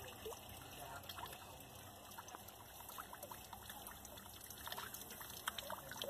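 Thin streams of water trickling and dripping from the lip of a rusted steel bowl into another bowl below, in a small garden cascade fountain. A faint steady trickle with scattered drip splashes that come more often near the end.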